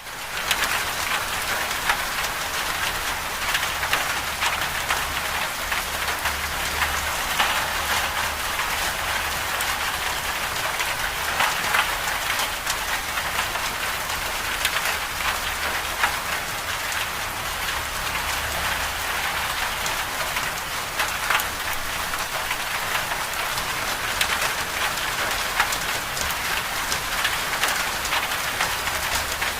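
Steady rain falling, a dense hiss with many individual drops pattering, over a low rumble that comes and goes.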